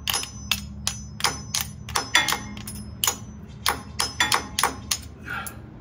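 Quick, light hammer taps on metal, about three a second, each with a short metallic ring.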